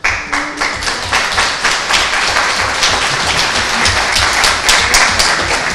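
Audience applauding: many hands clapping at once, starting suddenly and holding steady.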